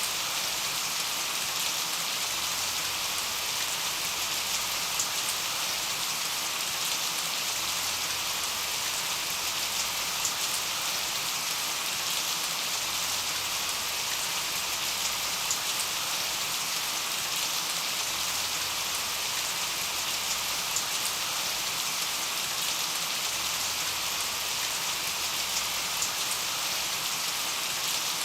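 Steady rain falling on a surface, an even hiss with small scattered drop ticks.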